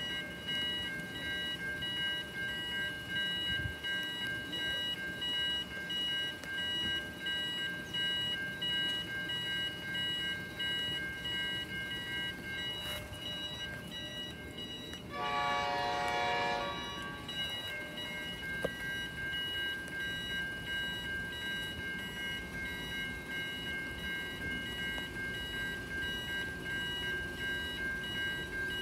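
Railway level crossing warning bells ringing steadily while the crossing is activated with no train present, which the onlooker takes for a crossing malfunction. About fifteen seconds in, a train horn sounds for about two seconds.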